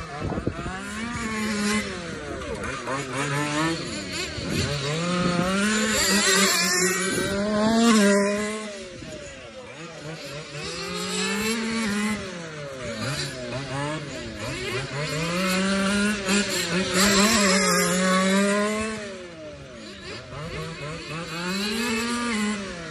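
Radio-controlled car engines, a 1:5 scale FG petrol two-stroke and a nitro engine, revving up and easing off over and over as the cars lap a cone course. The pitch rises and falls with each run, and the sound swells loudest about eight and seventeen seconds in as they pass close by.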